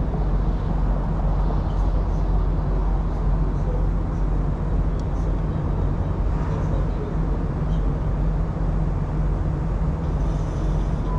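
Semi-truck diesel engine idling steadily, a low, even rumble.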